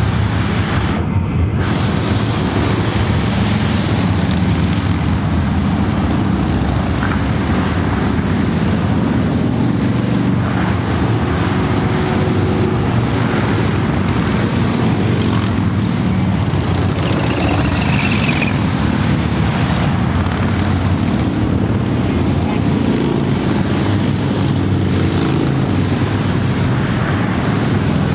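Steady rumble of a long column of cruiser motorcycles riding past on a highway, many engines blending into one continuous drone.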